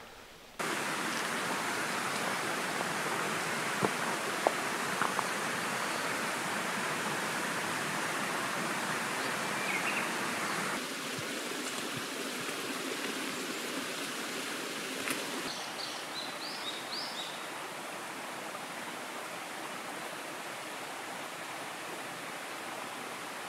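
Steady outdoor rushing ambience, like running water, with a few faint bird chirps. It steps down a little in level twice.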